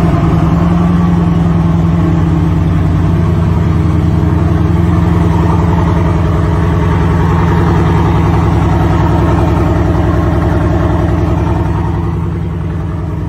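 Bugatti Vision Gran Turismo's W16 engine, just started, idling steadily. It eases a little quieter near the end.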